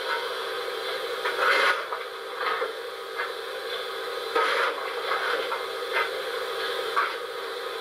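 ESU LokSound 5 XL sound decoder in an LGB model of the Harz narrow-gauge steam locomotive 99 7237-3 playing standing-locomotive sounds from real recordings through its loudspeaker: a steady hum with irregular hissing puffs every half second to a second.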